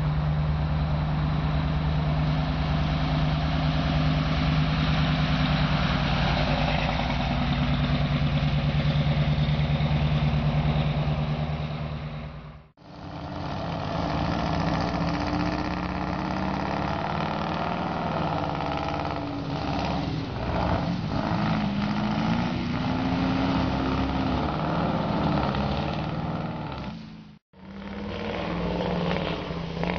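Straight-piped Scania R999 race truck's diesel engine running at a steady, held note, then after a cut revving with its pitch rising and falling through a burnout. A second abrupt cut comes near the end.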